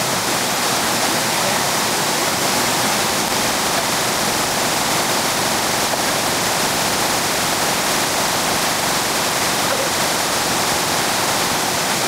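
Small waterfall pouring over stepped rock ledges into a pool: a steady, even rush of falling water.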